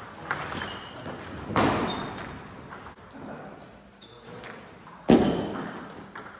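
Table tennis ball hits: sharp clicks and knocks of the celluloid ball off bat and table, echoing in a large hall. There are a few light clicks near the start, a strong hit about a second and a half in, and the loudest hit about five seconds in.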